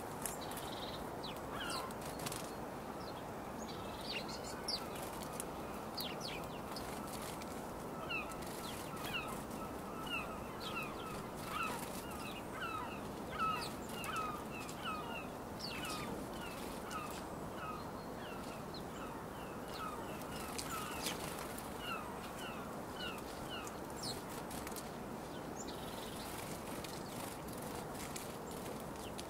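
A flock of house sparrows at a seed feeder: scattered chirps and wing flutters as birds fly on and off, over a steady low background hum. Through the middle a run of short calls repeats about two or three times a second, then stops.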